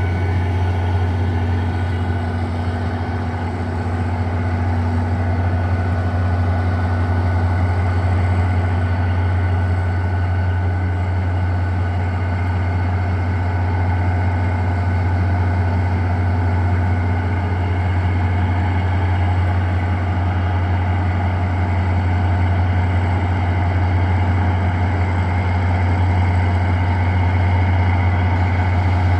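Railroad locomotive running steadily at a standstill, a loud unbroken low drone with faint steady whines above it.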